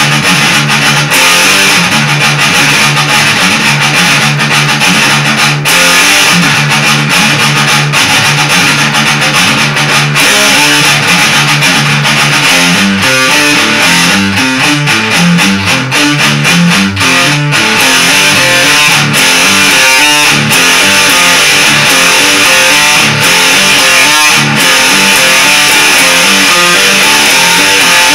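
Guitar in drop D tuning played loud, riffing on repeated low notes for the first dozen seconds, then running through quicker single-note licks that move up and down the neck.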